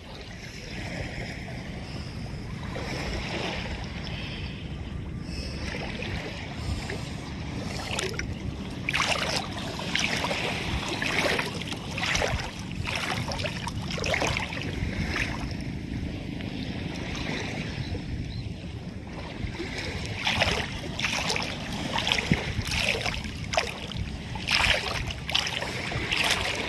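Small waves splashing and lapping at the shoreline in irregular bursts, over a steady low rumble of wind on the microphone.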